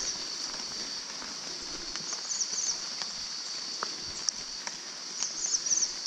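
Wet forest ambience: a steady high-pitched insect drone, with a quick chirping call of a few notes twice, about two seconds and five seconds in, and a few faint taps.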